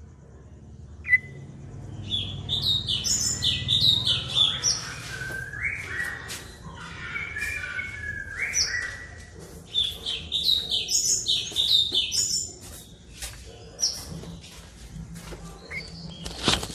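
White-rumped shama (murai batu) singing a varied song of rapid high whistled phrases, lower gliding whistles and chattering notes. After a short note it starts about two seconds in, pauses briefly now and then, and a sharp click comes near the end. It is a lure (pancingan) song meant to provoke a silent shama into answering.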